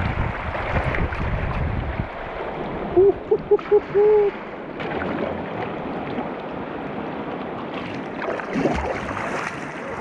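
Rushing river water and wind buffeting the microphone on a sea kayak's deck, with a heavy low rumble that eases after about two seconds. About three seconds in come four short hoots and then a longer one, the loudest sound.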